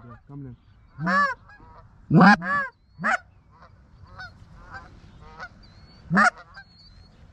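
Canada geese honking: several loud, close honks in the first few seconds and another about six seconds in, with fainter, more distant honks between them from a flock in the air.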